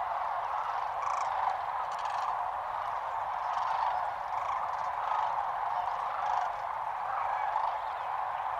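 A large roosting flock of sandhill cranes calling together, a dense rolling chorus with single louder calls standing out about once a second.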